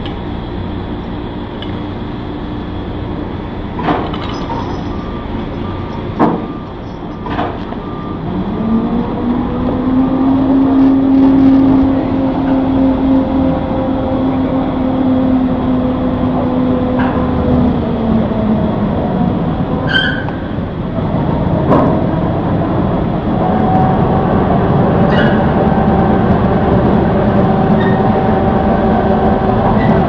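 Cargo crane hoisting a spreader load of newsprint paper reels: a steady motor whine comes in about a third of the way through and falls away past the middle, and a higher whine takes over near the end. A few sharp metal clanks of chains and hook clamps come early on.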